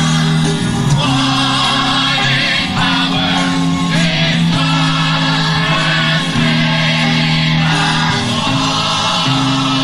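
Gospel song sung by a group of voices over instrumental accompaniment, with held low chords that change every second or so.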